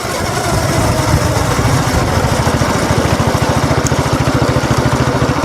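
Mini bike's small gas engine running under throttle as the bike is ridden, its exhaust firing pulses steady and even, picking up slightly just after the start.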